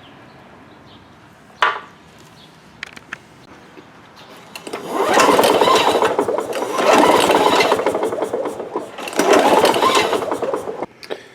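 Lawn Boy mower engine cranked over by its pull-cord recoil starter in three spells of about two seconds each, turning over without firing: the ignition coil is giving no spark. A single click comes about two seconds in.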